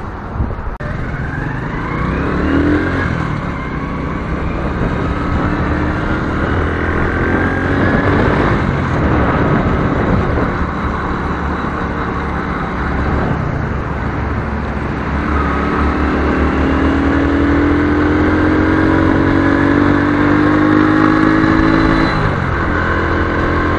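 Small motorcycle engine heard from the rider's helmet, pulling away and accelerating along the road. Near the end its pitch climbs through a long pull, then drops at a gear change.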